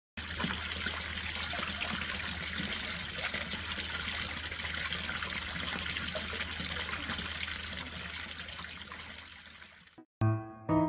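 Water pouring steadily from a spout into a basin, a continuous splashing. It cuts off suddenly near the end and piano music comes in.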